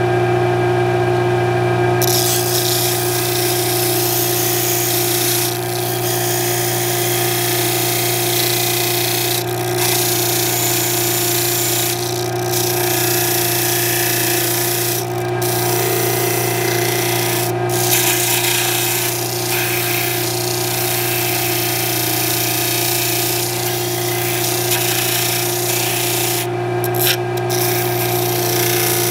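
Stationary disc sander running with a steady motor hum. From about two seconds in, a steady hiss of the spinning abrasive disc sanding wood joins it, dropping out briefly a few times as the piece comes off the disc.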